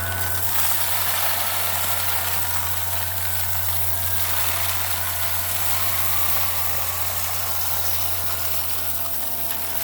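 Hoover Air vacuum cleaner running steadily while vacuuming up a test mess: a loud rush of air with a motor whine that drifts slightly up and down in pitch.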